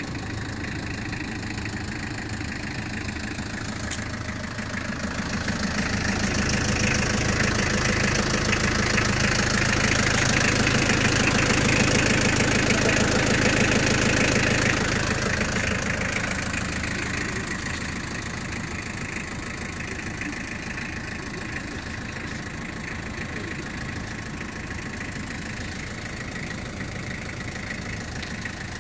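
Nissan Vanette's LD20 2.0-litre naturally aspirated diesel engine idling steadily. It gets louder for about ten seconds in the middle, then settles back, with one short click a few seconds in.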